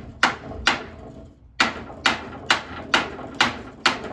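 Eight sharp blows on a wooden board along the top of a bookshelf, knocking it loose to pull it off. There are two blows, a pause of nearly a second, then six more at about two a second.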